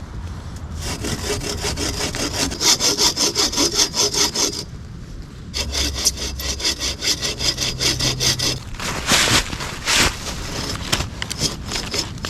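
Hand saw cutting through wood with quick, even back-and-forth strokes, in two long runs broken by a short pause about five seconds in, then a few slower, separate strokes.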